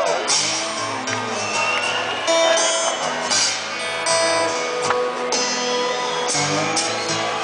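Live band music led by strummed acoustic guitars, played through a concert PA and recorded from within the crowd.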